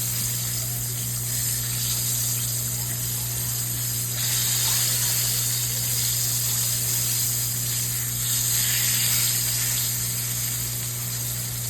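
Food frying in hot oil in a pan, sizzling steadily and swelling louder twice, over a steady low hum.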